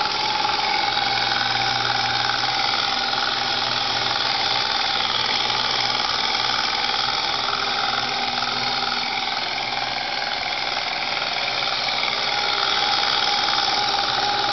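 Lexus IS300 engine running with a steady high-pitched whine and hiss over its low hum: the weird noise from the engine bay that the owner is trying to identify.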